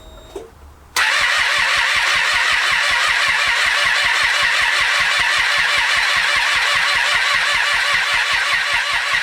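2012 Triumph Street Triple 675R's three-cylinder engine being cranked on the starter motor, starting abruptly about a second in, with a steady, evenly pulsing churn. It turns over but does not catch; the non-start is suspected to be an ECU or timing fault.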